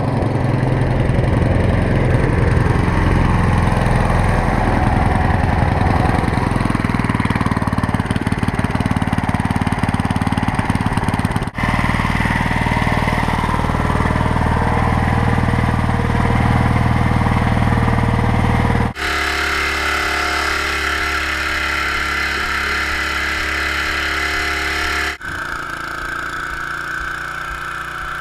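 Homemade boat kicker motor, a small air-cooled lawn-mower-type engine, running steadily under load and pushing a loaded pontoon boat. Its tone shifts abruptly about 11, 19 and 25 seconds in.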